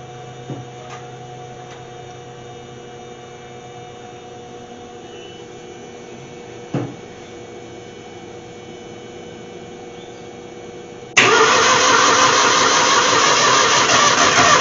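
Ford Falcon engine being cranked over by its starter, coming in suddenly and loudly about eleven seconds in, while the engine tries to catch. Before that there is only a low steady hum and a single short knock near the middle.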